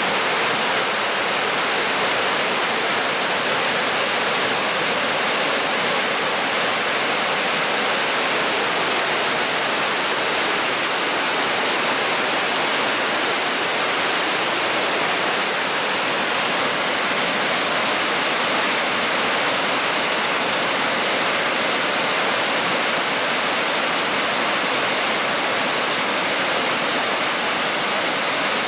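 Mountain stream rushing steadily over rocks: an even, continuous water noise.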